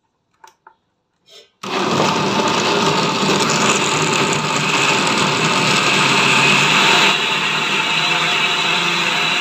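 Countertop blender puréeing tomatoes, onion and garlic with water. After a few faint clicks it starts abruptly about a second and a half in and runs steadily.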